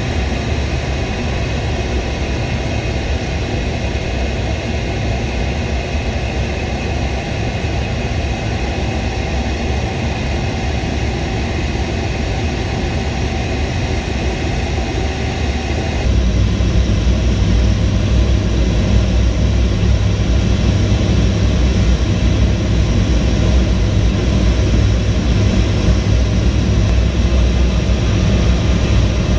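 Jet aircraft in flight: a steady drone of engines and rushing air. About halfway through it cuts abruptly to a louder, deeper rumble.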